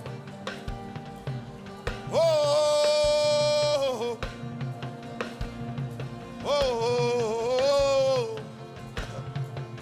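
Worship-style background music with a steady low pulse. A voice holds two long notes over it, the first about two seconds in and the second about six and a half seconds in.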